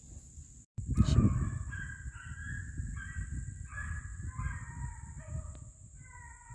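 Pack of beagles baying while running a rabbit, several hound voices overlapping in drawn-out calls at different pitches. A thump about a second in is the loudest single sound.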